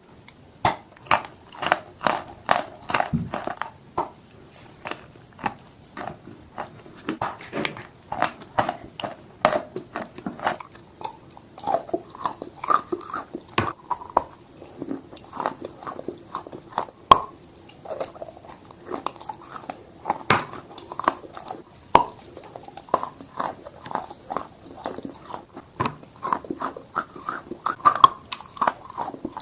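A person biting and chewing pieces of chalk close to the microphone. It is a continuous run of sharp, crisp crunches, a few each second.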